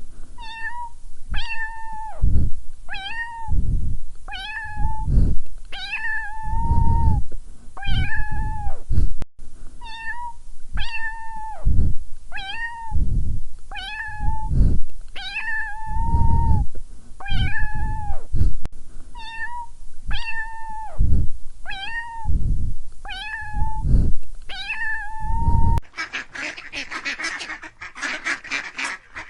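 Kitten meowing over and over, about one meow a second, each a high call that bends down at its end. Near the end the meowing stops and a dense, rapid chatter of other animal calls takes over.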